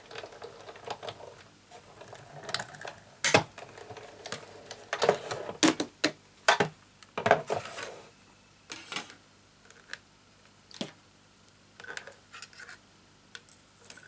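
Acrylic cutting plates, a thin metal die and card being handled on a Big Shot die-cutting machine. It is a string of irregular clicks, taps and short sliding scrapes of plastic.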